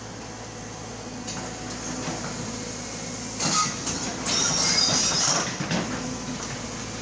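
Excavator at work: its diesel engine running steadily, with a short loud clank about three and a half seconds in and then a loud high-pitched metallic squeal lasting about a second.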